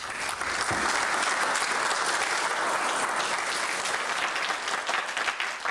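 A small audience applauding: dense, steady clapping that eases off slightly near the end.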